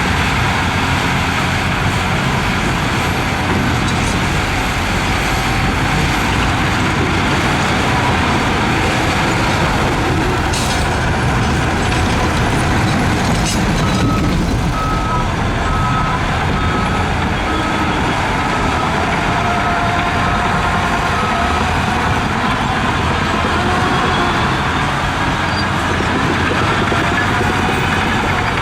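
Heavy diesel construction machinery, a bulldozer and dump trucks, running steadily. About halfway through, a reversing alarm beeps evenly for about seven seconds, and a short hiss comes a few seconds before it.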